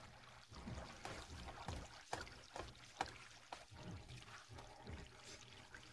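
Faint trickling and bubbling water from aquarium tanks, with a steady low hum and soft irregular taps.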